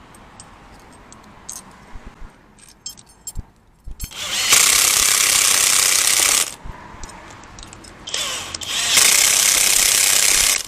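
Two loud bursts of a workshop power tool running, about two seconds each with a steady rushing noise that starts and stops abruptly, between quieter clicks and clatter of parts being handled.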